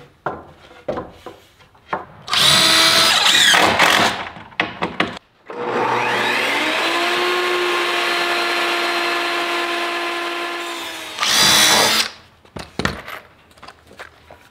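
Power tools at work on pressure-treated 2x4 lumber. A cordless impact driver runs in a short loud burst about two seconds in and again near the end. Between them a table saw motor spins up and runs steadily for about five seconds while ripping a board.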